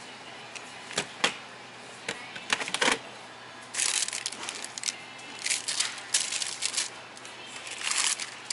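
Handling noise: a few sharp clicks and knocks, then several bursts of high-pitched crinkling rustle.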